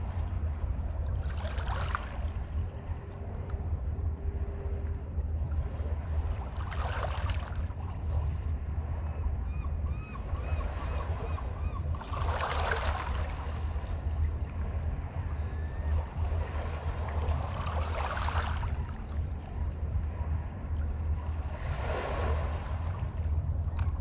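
Small waves washing onto the shore, five washes a few seconds apart, over a steady low rumble. Faint bird chirps come in about halfway through.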